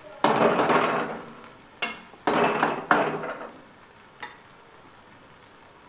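Metal ladle stirring and scraping aloo bhindi (fried potatoes and okra) around a metal kadhai, in two strokes within the first three seconds, with a few light clicks against the pan. After that only a faint background remains.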